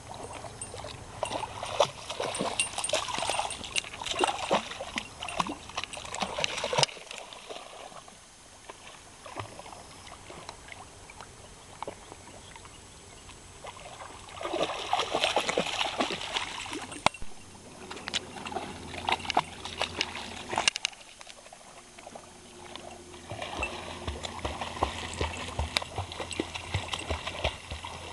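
A puppy paddling and splashing through shallow water in several bouts, with quieter spells between them.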